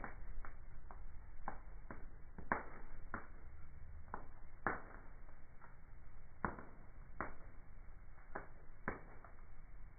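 Wood fire burning in a fireplace, crackling with irregular sharp pops over a low steady rumble of the flames.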